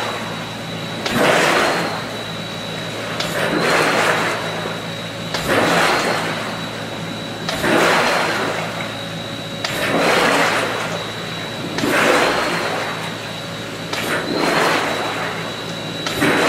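Pulsair pulsed large-bubble compressed-air mixer in a wastewater wet well: a big air bubble bursts up through the water and churns the surface about every two seconds, each a rushing surge. A steady low hum and a faint high whine run underneath.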